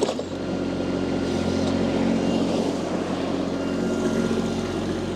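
Mini skid steer loader's engine running steadily, driving the angle sweeper's hydraulic motor with the flow switch turned up so the brush spins fast.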